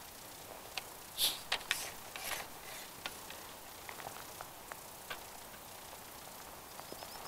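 Rustling and small knocks of the angler's sleeve and hand close to the microphone as he handles the rod and lifts a small fish out of the river. A quick run of high, repeated chirps starts near the end.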